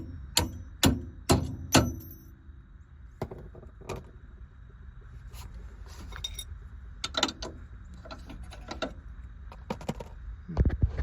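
Metal hand tools clanking and knocking on car suspension parts: four sharp knocks about two a second at the start, then scattered lighter clinks.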